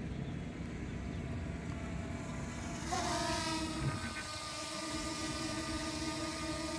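DJI Mini 2 drone's propellers whining as it hovers close by: a steady pitched buzz that starts about three seconds in, dipping briefly in pitch as it comes in. Before that there is only a low rumble.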